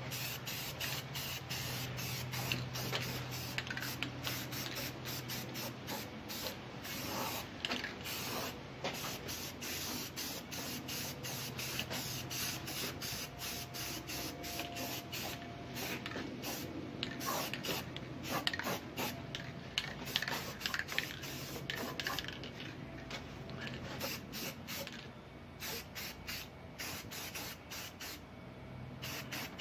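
Aerosol spray-paint can hissing in many short, irregular bursts as a coat of paint is sprayed on.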